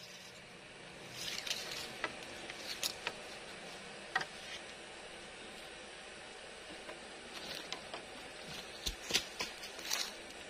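Irregular light knocks and clatter of hollow bamboo poles, lashed together with rope, as the platform is handled and shifted, with some rustling. There is a brief cluster of knocks about a second in and another near the end, over a steady background hiss.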